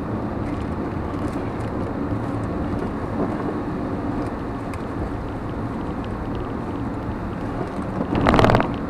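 Steady road and engine noise inside a moving car, with a short loud burst about eight seconds in.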